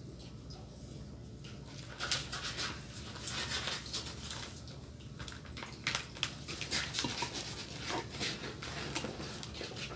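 Soft rustling and small irregular clicks of a Vietnamese fresh roll being wrapped and rolled by hand: lettuce and filling folded into rice paper and pressed against a plate.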